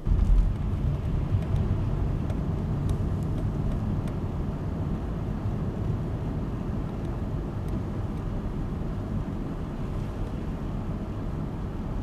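Steady low rumble of a vehicle driving along a snow-covered interstate, tyre and engine noise heard from inside the car. It is loudest in the first second.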